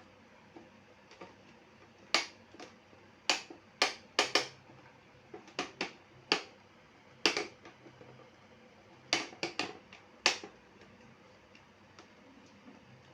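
A series of sharp, irregular clicks and knocks, about a dozen, from the hard plastic parts of a standing electric fan being handled and fitted together.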